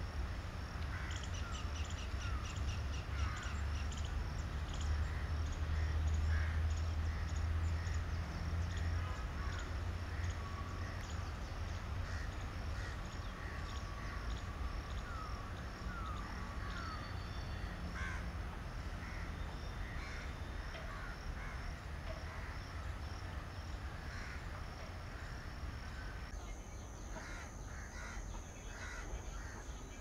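Crows cawing again and again over a fast, rhythmic high chirring of insects, with a low rumble underneath. Near the end the chirring gives way to a steady high insect drone.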